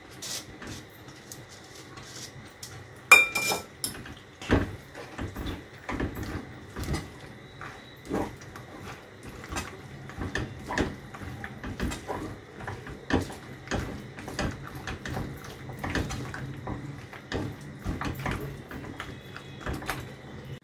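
A spatula scraping and knocking in a non-stick pan as boiled penne is mixed into thick red sauce: a busy run of short scrapes and taps, with a sharp clank of metal about three seconds in.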